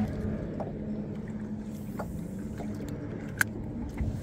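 Faint steady low hum with a few light clicks and knocks of fishing gear in an aluminum boat, and one sharp click about three and a half seconds in.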